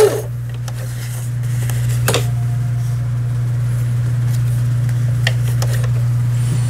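Toyota 5080 household sewing machine running steadily while sewing an overlock stitch through fabric during a test after repair: a steady motor hum with a few light clicks.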